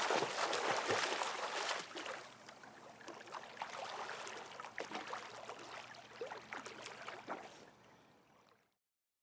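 A person swimming in a swimming pool: water splashing and sloshing with the strokes, busy at first, then quieter and sparser lapping that fades out and stops near the end.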